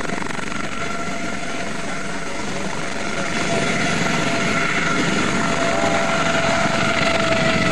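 Helicopter with a ducted fenestron tail rotor running at power, its turbine and rotors making a steady noise with a steady whine. It grows louder from about three seconds in as the machine lifts off and tilts sharply.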